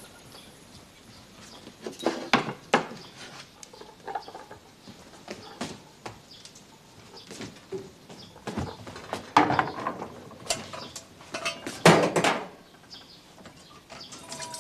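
Scattered clinks and knocks at irregular intervals, some in quick pairs, the loudest about two seconds in and again near the end.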